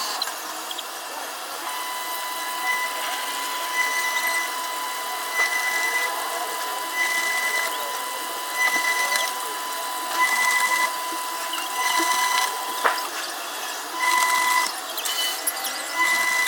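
Washing machine running, with its electronic beeper sounding short high beeps about every second and a half over a faint steady tone, and a few sharp clicks.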